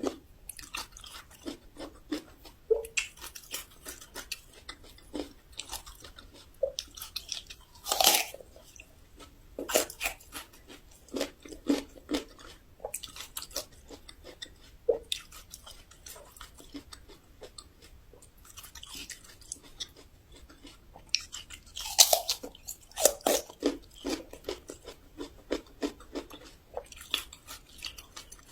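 Raw Shandong yellow ginger being bitten and chewed close to the microphone, a steady run of crisp crunches. Two louder bites stand out, about a third of the way in and again about three quarters through.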